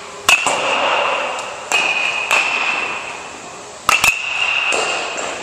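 Baseball bat hitting baseballs: several sharp hits about a second or two apart, each followed by a ringing note that fades.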